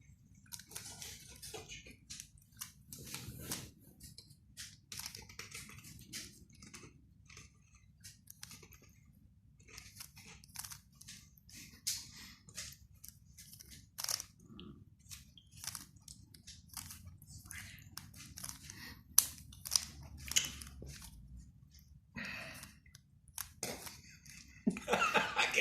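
3x3 Rubik's Cube being turned quickly by hand: irregular flurries of sharp plastic clicks and rattles as the layers snap round, several a second with short pauses between runs.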